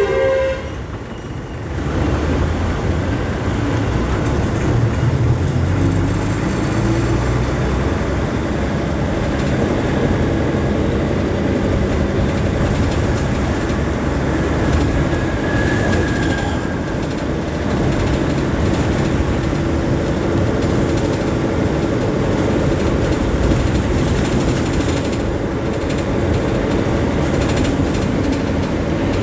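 Steady low rumble of road traffic, vehicles running continuously with no single one standing out.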